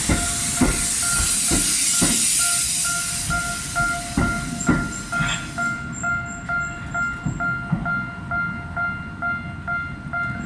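Level crossing warning bell ringing about twice a second while a Tokyo Metro Ginza Line 1000 series train crosses during shunting. The train's wheels knock over the rail joints several times, and a hiss from the train dies away about six seconds in, leaving the bell ringing on.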